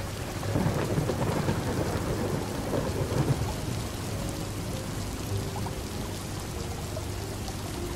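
Steady rain pattering, with a rumble of distant thunder that swells about half a second in and dies away after about three seconds.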